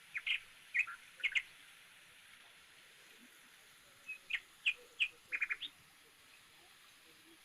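A small bird chirping: short, high chirps in two bursts, one in the first second and a half and another about four to six seconds in, including a quick run of three, over a faint steady hiss.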